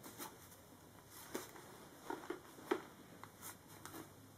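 Faint scuffing and a few soft taps of a terry cloth towel rubbing Plasti Dip rubber coating off the rim of a helmet's plastic shell, the clearest a little under three seconds in.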